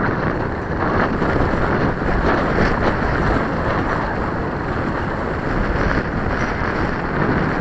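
Strong, gusty wind blowing across the microphone: a loud, steady rush of low rumble and hiss that swells and eases slightly.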